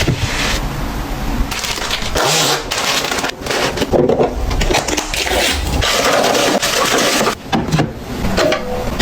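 Packaging and containers being handled: rustling and crinkling, with many short clicks and knocks as items are picked up and set down.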